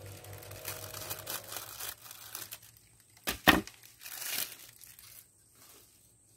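Scissors cutting through a clear perforated plastic bag, the plastic crinkling and rustling. About three and a half seconds in comes a sharp double knock as the scissors are set down on the table, then a short ripping rustle as the cut plastic is pulled open.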